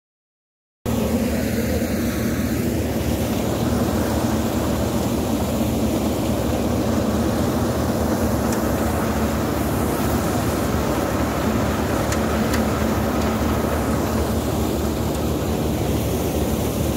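Tractor-driven drum thresher threshing pearl millet: the tractor engine and the spinning thresher drum make a loud, steady drone. It starts abruptly about a second in.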